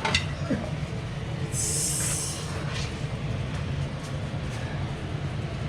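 Steady low rumble of a running engine, with a short hiss about one and a half seconds in.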